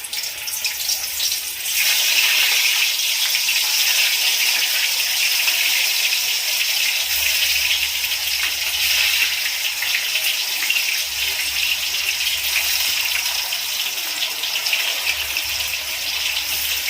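Pieces of chicken-stuffed snake gourd sizzling as they deep-fry in hot vegetable oil in a kadai: a steady hiss that grows louder about two seconds in.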